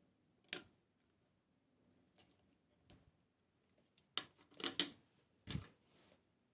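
A few sharp clicks and taps of small diecast and plastic model-kit parts being handled: one about half a second in, a quick cluster about four to five seconds in, and one more just after.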